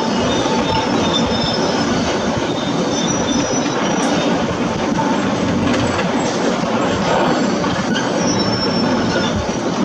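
Heavy construction machinery at work: a steady diesel engine running under a dense mechanical din, with thin high metallic squeals coming and going.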